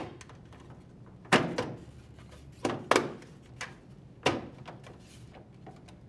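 LG front-load washer's control panel being pushed along its grooves and snapped into place: about half a dozen sharp knocks and clicks of plastic against the metal frame, irregularly spaced.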